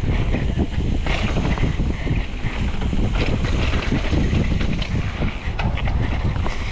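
Wind rushing over the camera microphone and a mountain bike's knobby tyres rolling fast down a dirt trail, with frequent small knocks and rattles from the bike over bumps.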